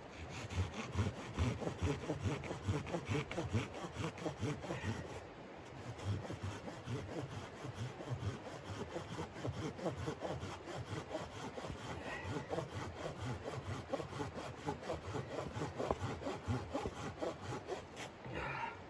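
Hand saw cutting through a log in quick, steady back-and-forth strokes, with a brief pause about five and a half seconds in.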